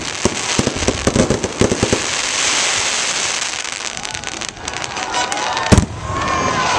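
Fireworks going off: a rapid string of crackling bangs for the first two seconds, then a dense steady crackle, and one sharp, loud bang just before the end.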